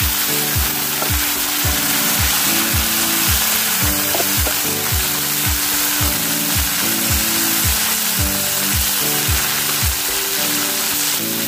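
Food frying in a pan, a steady loud sizzle, over background music with a kick drum beating about twice a second.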